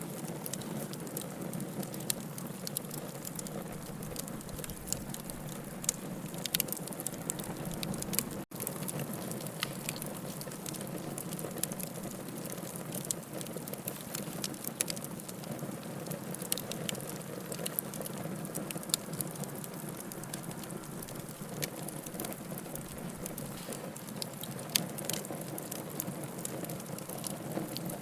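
Bonfire burning: a steady hiss of flames with many sharp crackles and pops from the burning wood, a few louder snaps among them. The sound drops out for an instant about eight seconds in.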